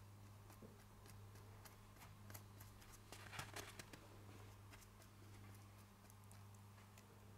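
Near silence: faint soft ticks and scratching from a brush dabbing rubber cement onto a rubber bicycle inner tube, with a brief louder scratchy patch about three and a half seconds in, over a steady low hum.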